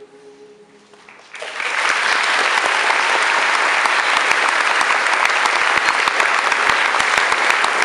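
A choir's last sung chord fades out faintly, then about a second and a half in an audience breaks into loud, steady applause.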